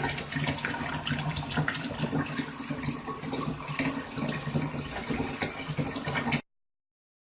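Giantex portable twin-tub washing machine running: a steady motor hum with water noise and small clicks over it. The sound cuts off suddenly about six seconds in.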